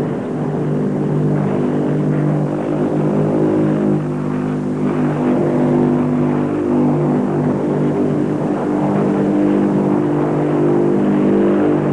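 Convair XFY-1 Pogo's turboprop and contra-rotating propellers running steadily as the tail-sitter hangs nose-up on its props in a hover. It is a steady drone of several tones, with its pitch shifting slightly a few times.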